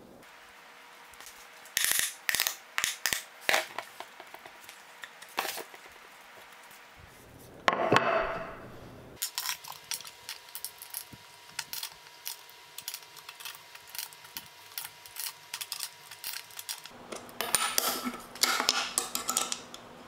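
Hand tools and metal hardware being handled on a wooden worktop: scattered knocks and clicks, a short scrape about eight seconds in, a long run of small quick ticks, then a denser metallic clatter with some ringing near the end as an adjustable wrench is worked on a bolt and nut set through a wood block.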